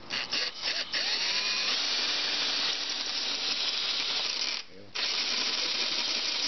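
Power drill boring into the head of a seized stainless steel fairing screw. It starts with a few short trigger bursts, then runs steadily after spinning up, stopping briefly about three-quarters of the way through before drilling on.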